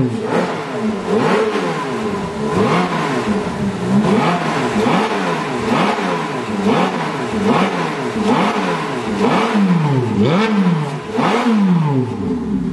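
Ferrari F430 Spider's 4.3-litre V8 being revved repeatedly through its exhaust, the pitch climbing and dropping back about once a second.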